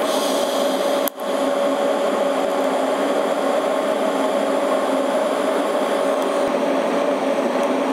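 Electric arc welding: heavier tack welds laid on a bracket on a rear axle housing. The arc runs as a steady hiss with a steady tone, breaking off once for a moment about a second in, then restarting.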